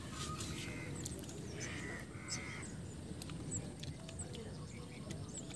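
Faint outdoor background with distant birds calling: small high chirps throughout and a couple of harsher calls about two seconds in.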